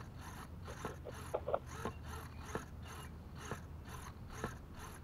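Small hobby servos on the RC receivers buzzing and clicking as they swing their red arms back and forth in answer to the transmitter, with a quick, even pulsing of about four beats a second and scattered sharp clicks.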